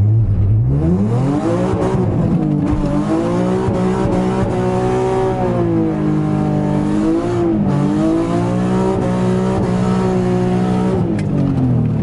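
Nissan 350Z's 3.5-litre V6 heard from inside the cabin as the car accelerates. The engine note climbs steeply over the first two seconds, then holds fairly steady with a few small dips and rises, and eases off near the end.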